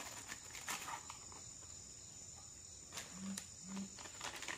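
Crickets trilling steadily, one high continuous tone, under a few faint clicks.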